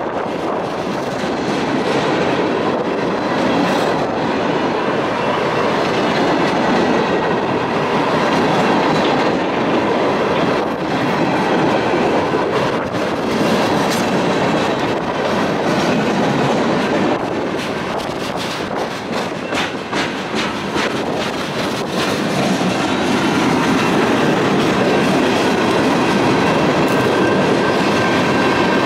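CSX freight train's cars rolling past close by: a continuous rumble of steel wheels on rail, with a rapid clickety-clack as the wheels cross rail joints.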